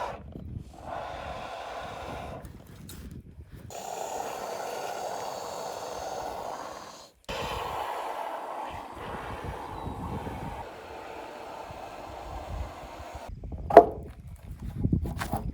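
Can of expanding spray-foam insulation hissing as foam is dispensed into a gap, in several long spurts of a few seconds each, with a sharp knock near the end.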